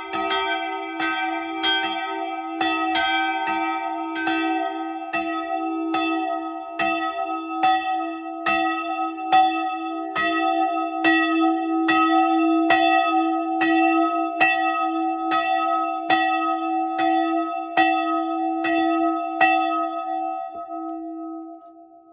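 Church tower bell swinging and ringing, its clapper striking a little under once a second over a steady ringing tone. About twenty seconds in the strikes stop and the bell's hum fades away.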